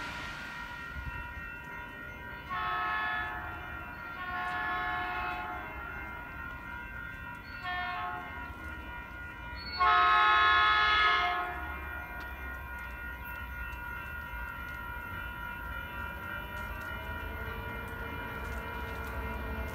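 Metrolink F59PHI diesel locomotive's air horn sounding the grade-crossing signal as the train approaches: two long blasts, a short one, then a final long blast that is the loudest. A low rumble of the oncoming train runs underneath.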